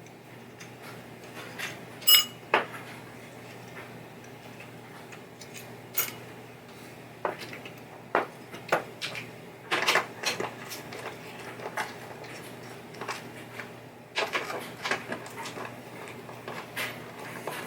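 Scattered light clicks and metallic clinks of small pinball playfield parts and hand tools being handled during disassembly, one clink ringing briefly about two seconds in.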